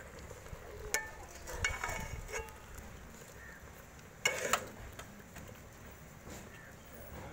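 Steel ladle stirring chicken pieces and tomatoes in liquid in a metal cooking pot, scraping and clinking against the pot a few times with a brief metallic ring. The loudest clinks come about four seconds in.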